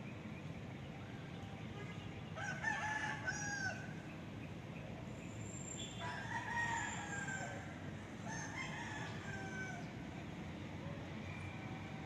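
Rooster crowing cock-a-doodle-doo three times, about two, six and eight and a half seconds in, over a steady low background rumble.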